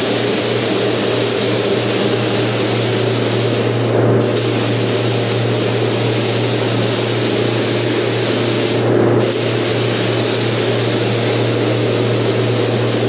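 Compressed-air hiss of a gravity-feed spray gun spraying paint, with two brief breaks in the hiss about four and nine seconds in where the trigger is let off between passes. A steady low hum runs underneath.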